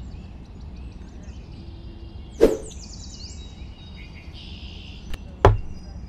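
Two sharp knocks, about two and a half seconds in and again near the end, the second as a small wooden feeding trough is set down, over birds chirping in the background.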